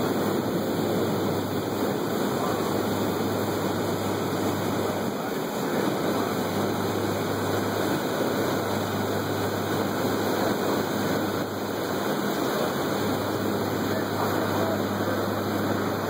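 A boat underway: a steady low engine hum under a rushing wash of wind and water.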